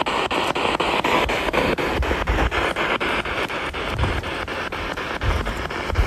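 Spirit box sweeping through radio stations: steady static cut by even clicks, about six or seven a second.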